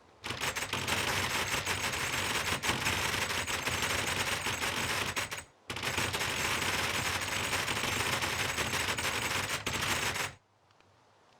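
Loud, harsh sound made of very rapid clicks or pops in two bursts of about five seconds each, with a brief break between them, cutting off sharply.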